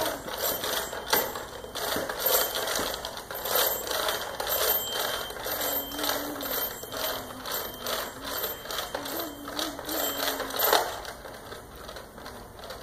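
Fisher-Price Chatter Telephone toy being handled by a baby: a run of irregular plastic clicks and rattles from its rotary dial and mechanism, with a thin jingling ring from its bell.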